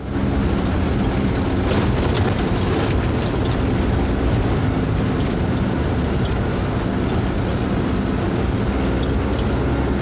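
Steady engine and road noise heard inside a moving vehicle's cabin, the engine running evenly under a rumble of tyres on a dirt road, with a few light rattles.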